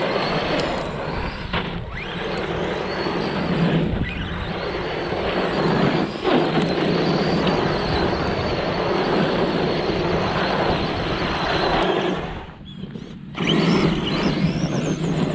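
Redcat Ground Pounder RC monster truck's stock brushed 540 electric motor and shaft-driven 4WD whining under hard throttle on loose gravel, with the tyres crunching and spraying stones. The motor is over-volted on a 3S LiPo, which the brushed system is not designed for. The noise drops away for about a second near the end, then comes back as the truck powers off again.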